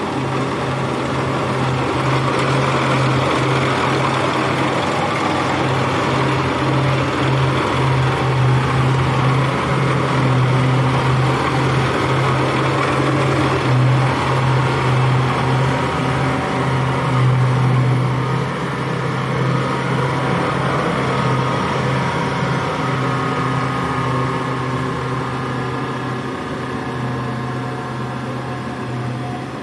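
Engine of a small rice-harvesting machine running steadily under load. The hum grows a little louder through the middle, then eases off after about two-thirds of the way through.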